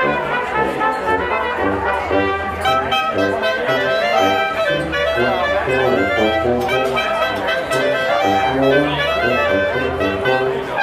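Small oompah band of clarinets, trombone and tuba playing a lively Volga German folk tune, with the tuba carrying the bass line under the clarinet and brass melody.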